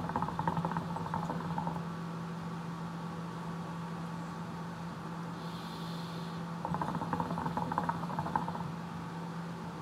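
Hookah water bubbling in bursts as it is drawn through the hose: one burst of gurgling right at the start and a second about seven seconds in, each lasting about two seconds, over a steady low hum.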